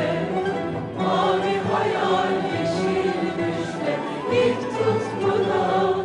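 Background music with a choir singing sustained notes.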